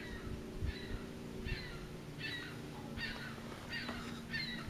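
Nestling swallows giving begging calls to their parent: short clusters of high, falling chirps repeated about every three-quarters of a second.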